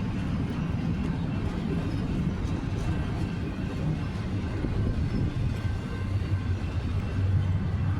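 Union Pacific freight train rolling past, a steady low rumble with a low hum that grows stronger near the end.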